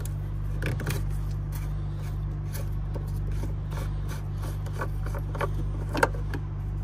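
Irregular clicks and rubbing from handling under the open front panel of a Mercedes lorry during its pre-start fluid check, with a sharper click about six seconds in, over a steady low hum.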